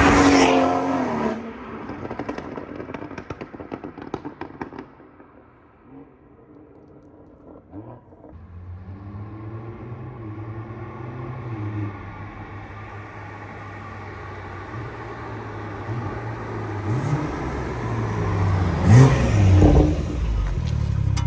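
A tuned BMW M240i's turbocharged straight-six sweeps past at speed, then gives a run of exhaust pops and crackles on the overrun that fade as it pulls away. After a lull the engine note returns and grows steadily louder as the car comes back, and it passes close again near the end with another loud rise and fall in pitch.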